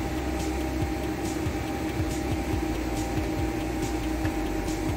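Steady mechanical hum of workshop machinery with a constant tone. Over it, faint light scrapes about once a second from a plastic spreader smoothing body filler onto a bus's metal side panel.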